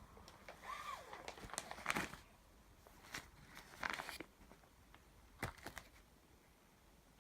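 Faint handling noises: scattered rustles, crinkles and small knocks, with a brief squeak about a second in.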